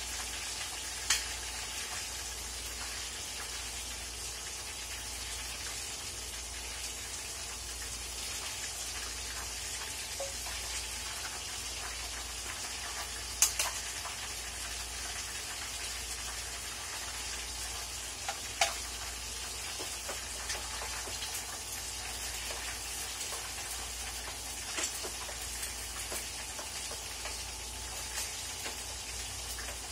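Food frying in a wok over a gas burner, a steady sizzling hiss, with a few sharp clicks of the spatula against the pan; the loudest comes about halfway through.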